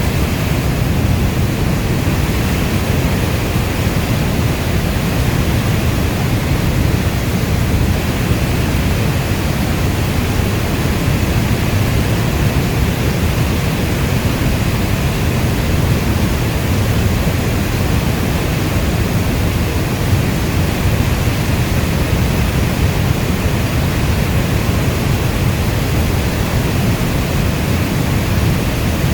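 Steady heavy rainfall, an even dense hiss weighted toward a deep rumble, with no separate drops or thunder standing out.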